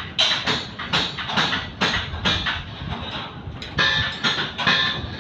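Repeated metallic banging, roughly two blows a second with a short pause after about three seconds, some strikes ringing; typical of hammering on metal at a construction site.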